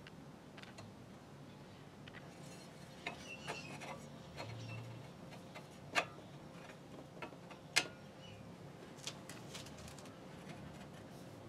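Scattered light metal clicks and taps as a strip of angle iron is handled and set against the clutch motor's steel lever, the two sharpest a couple of seconds apart in the middle, over a faint steady hum.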